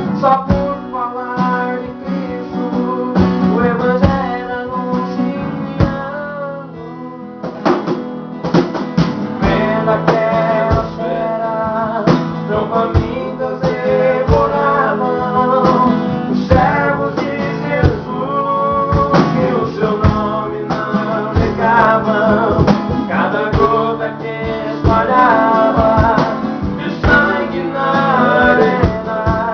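A Christian missionary hymn, sung over guitar accompaniment; the music eases off briefly about six seconds in, then picks up again.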